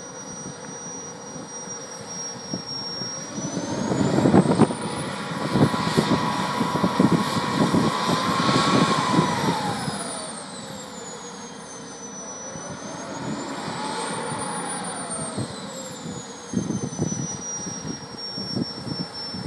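The small jet turbine engine of a radio-controlled F-16 model running with a high whine. It spools up to a much higher pitch with a louder rush of exhaust, winds back down to idle, then runs up and down once more, less far.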